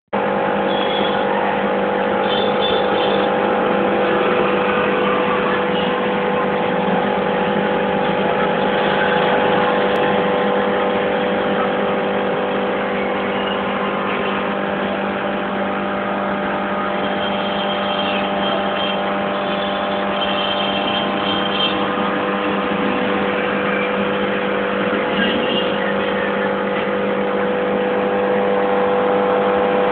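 Aquarium air pump humming steadily under a hiss of air bubbling through the water.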